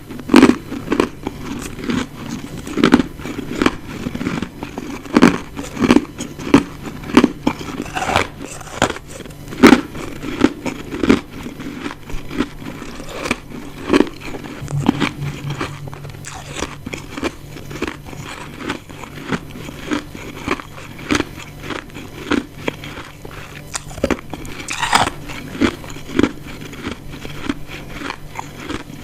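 Close-up biting and chewing of ice chunks: a run of sharp, irregular crunches, louder and more frequent in the first half.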